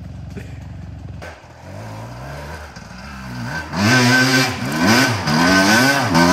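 Dirt bike engine under hard load climbing a steep dirt hill, revved in repeated surges that rise and fall in pitch. It is quieter and steadier at first, then grows much louder from about three and a half seconds in as the bike comes closer.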